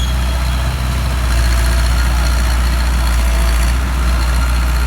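Sumitomo SH60 mini excavator's diesel engine running steadily with a deep, low hum.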